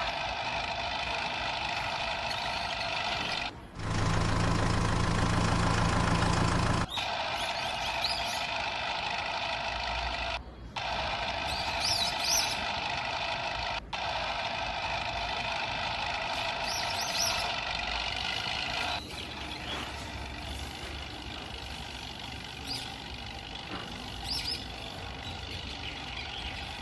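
A string of vehicle sound effects: a steady, tone-laden engine-like sound broken by abrupt changes every few seconds, with a louder hissing noise about four seconds in that lasts about three seconds.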